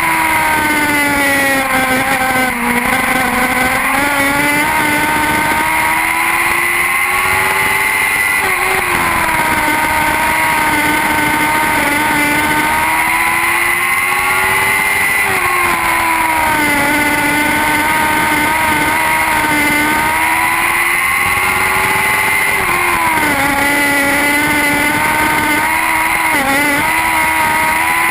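Lightning sprint cars racing around an oval. The high-revving engines climb in pitch down each straight and drop into each turn, repeating about every seven seconds, once a lap.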